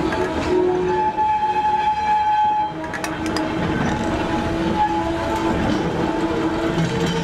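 Wooden goods vans rolling slowly past at close range, their running gear rumbling, with drawn-out metallic squealing tones throughout and a few sharp clanks about three seconds in.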